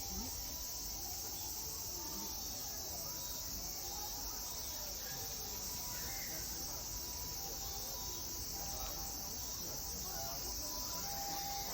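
Steady high-pitched drone of an insect chorus, with faint short tones coming and going beneath it.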